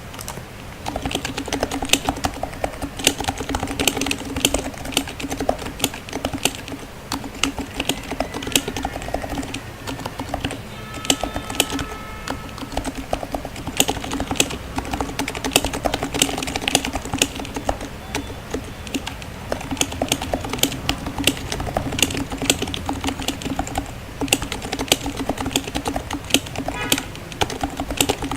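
Continuous typing on an HHKB Type S keyboard with lightly lubed, silenced Topre switches: a steady, irregular stream of keystrokes.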